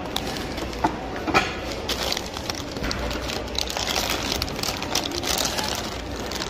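Plastic coffee-mix packets crinkling and rustling as they are handled, heaviest in the second half, over the general clatter and hum of a store checkout. A couple of sharper clicks come about a second in.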